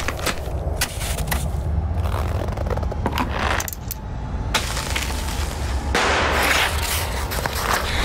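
Close-up sounds of skeleton-racing gear: shoe spikes crunching into ice, with sharp metallic clicks and scrapes. Longer gritty scrapes come from about five seconds in, over a steady low rumble.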